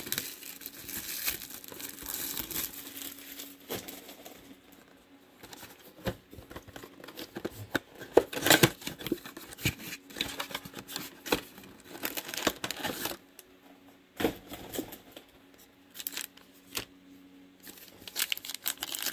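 Trading card packs and cards handled at close range: plastic pack wrappers crinkling and tearing, with cards clicking and sliding against each other in irregular bursts.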